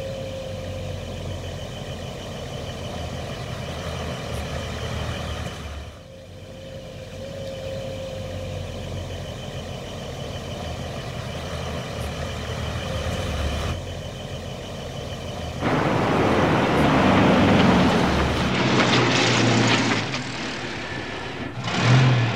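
Truck engine sound effect running steadily, repeating in a loop every six seconds or so. About two-thirds of the way in it turns much louder and noisier for about five seconds, then drops back to the steady running.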